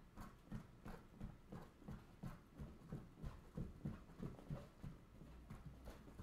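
Soccer ball being tapped between the feet and bouncing on a tile floor: soft, regular thuds about three a second, thinning out near the end.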